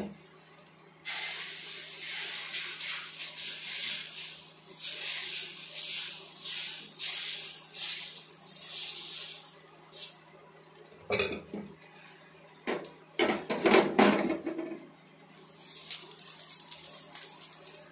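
Dosa batter sizzling on a hot non-stick tawa as a ladle spreads it in circles, hissing loudly in pulses with each stroke. Partway through come several clanks and knocks of metal utensils, then the sizzling picks up again near the end.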